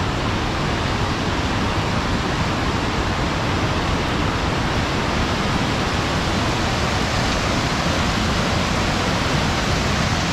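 A fast mountain river and its cascades, rushing loud and steady close by.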